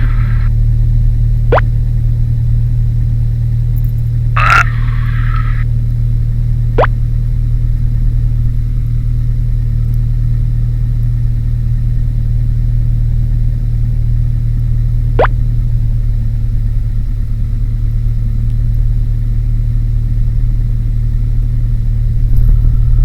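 Single-engine light training aircraft's engine and propeller running at a steady taxi power, heard from inside the cockpit as a loud, even low drone. A few short clicks break in, with a brief burst of hiss about four and a half seconds in.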